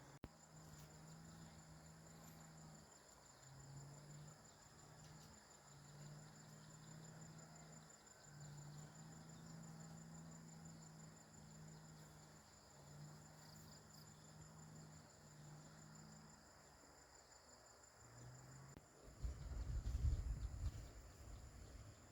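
Insect trilling faintly and steadily in one high, fast-pulsing tone, with a low hum that comes and goes underneath. About nineteen seconds in the trill stops and a louder low rumbling noise takes over.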